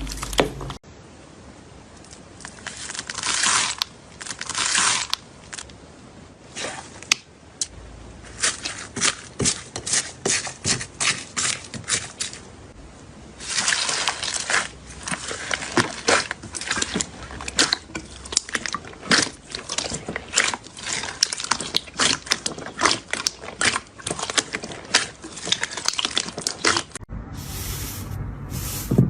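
Slime being squished, pressed and poked by hand: dense runs of sticky popping clicks and crackles, with a few longer wet squelching swells between them.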